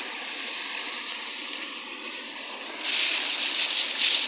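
Steady rush of a stream running over rocks. From about three seconds in, a plastic bag is handled close by, making a louder, uneven crinkling.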